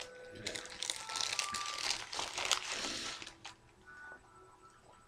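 White paper wrapper of a lamb yiros crumpling and crinkling as it is pulled open by hand, from about half a second in until about three seconds in.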